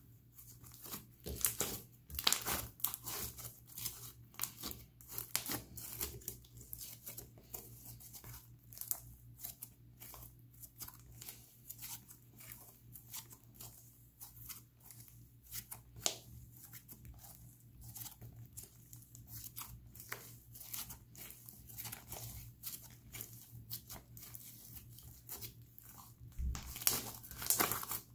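Thick yellow slime being stretched, folded and pressed on a stone countertop: a dense, irregular run of sticky crackles and small pops, busiest again near the end.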